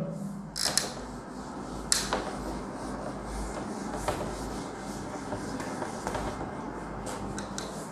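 Whiteboard duster rubbing across a whiteboard as the board is wiped clean: a steady scrubbing, with a couple of sharp knocks.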